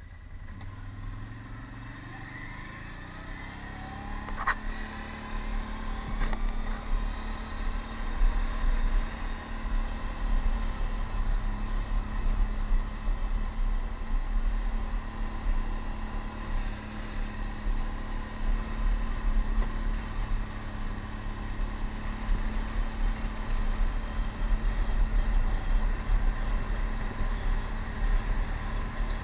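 Can-Am Outlander ATV engine pulling away, rising in pitch over the first few seconds, then running steadily at cruising speed along a gravel road.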